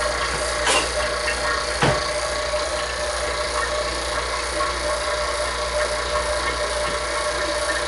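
A steady machine hum with a noisy hiss, broken by two sharp knocks, the first under a second in and the second about two seconds in.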